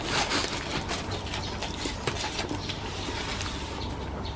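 Plastic cling film crinkling and crackling as it is peeled off a foam food tray, densest in the first second or so and thinning to light rustles.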